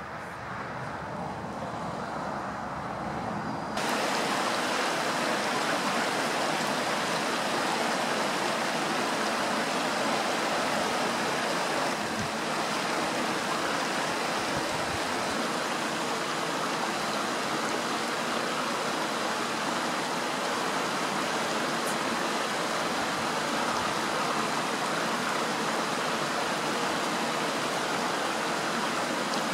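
Steady rush of falling water, an even hiss with no rhythm or calls in it. It jumps louder about four seconds in.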